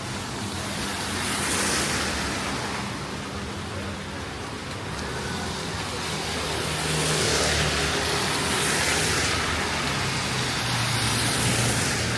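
Road traffic on a rain-soaked street: cars pass three times, their tyre hiss swelling and fading over a low engine hum.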